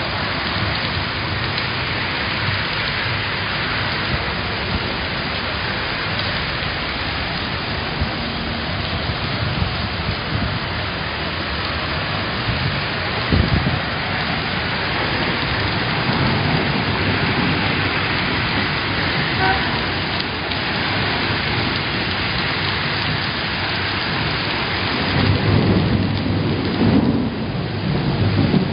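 Heavy rain pouring steadily, with low rumbles about halfway and again near the end.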